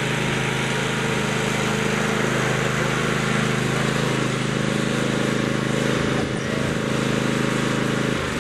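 Riding lawn mower engine running steadily, close and loud.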